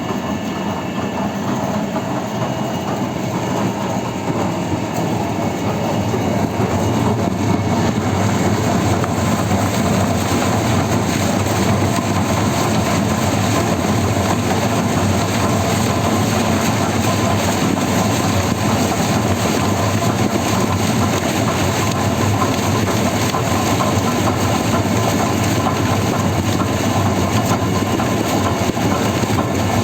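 Industrial machine running steadily with a continuous mechanical rumble and clatter. It grows a little louder over the first several seconds, then holds even.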